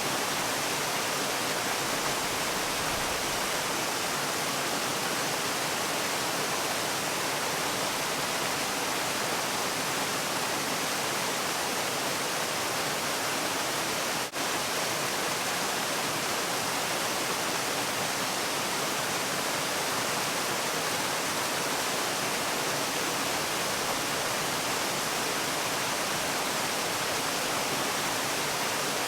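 Waterfall: a steady, even rush of falling water, heavy in hiss and light in low rumble, with a momentary dip in level about halfway through.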